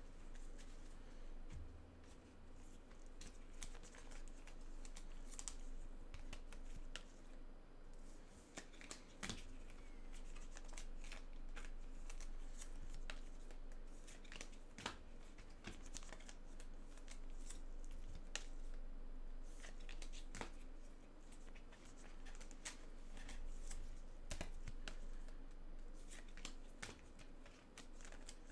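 Gloved hands handling trading cards and their wrappers: scattered soft clicks, rustles and crinkles, over a faint steady hum.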